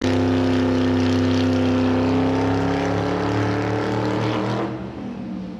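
Racing car engine running at steady high revs, its pitch sinking slightly and the sound fading away over the last second.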